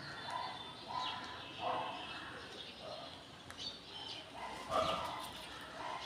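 Short harsh animal calls repeated every half second to a second, with a few sharp clicks in between.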